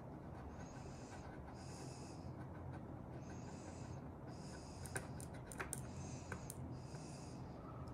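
Nasal breathing close to the microphone, a hissy in-and-out about every second and a half. Over it, a few sharp clicks between about five and six and a half seconds in, from the side buttons of a Suunto Ocean dive watch pressed to scroll its menu. Underneath runs a steady low rumble.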